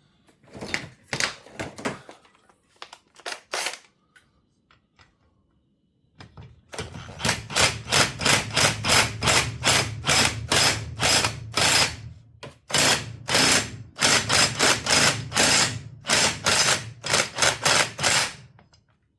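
Half-inch impact wrench hammering in long rapid bursts with short pauses, its motor humming under the blows, as it works at a very tight chainsaw flywheel nut. A few clicks and knocks of the socket being fitted come first.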